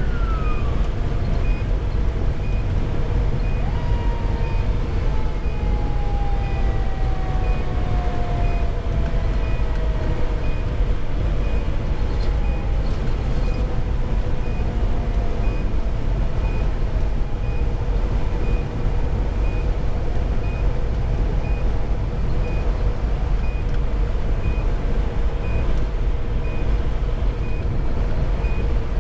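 Cab noise of a 2010 Pierce Velocity fire engine cruising at highway speed, with a steady low drone from its Detroit Series 60 diesel and the road. A siren wail falls away at the very start. About four seconds in, a siren tone slides slowly down in pitch and fades over several seconds, while a faint high beep repeats about once a second.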